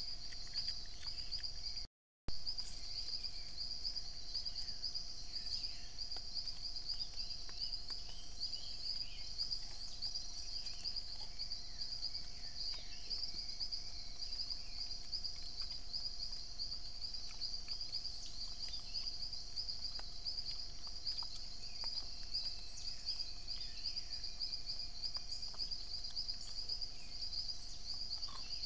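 Steady high-pitched, fast-trilling insect chorus, with scattered short faint chirps over it. The sound drops out briefly about two seconds in, and a click follows.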